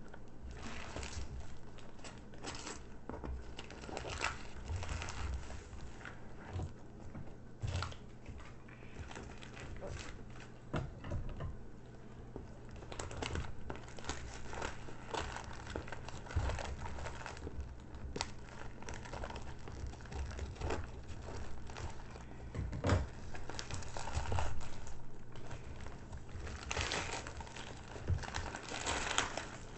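Packaging wrap being crinkled and torn open by hand: irregular rustling and crackling, louder in stretches towards the end.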